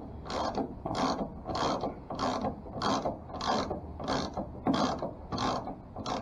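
Hand socket ratchet being swung back and forth to tighten a bolt. The pawl rasps on each return stroke, about ten strokes at a steady, even pace.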